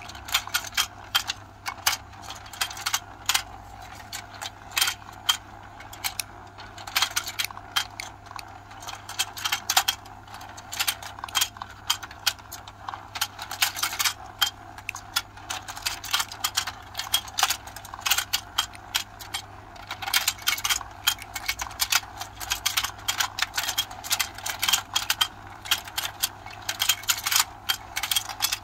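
Hard plastic clicking and clacking, rapid and irregular, as plastic fish pieces are handled and pressed into the holes of a toy fishing game board.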